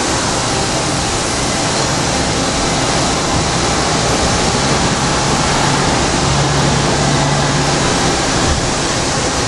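Hyd-Mech S-25P horizontal band saw running, a loud, steady hiss of machine noise with a faint low hum briefly near the end.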